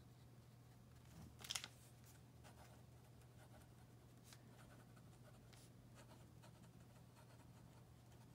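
Pen nib scratching faintly on notebook paper while writing, with one sharp click about a second and a half in, over a steady low hum.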